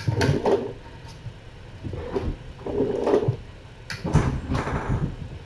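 Several short knocks and clatters, like things being bumped and moved around, with some muffled, voice-like sounds between them.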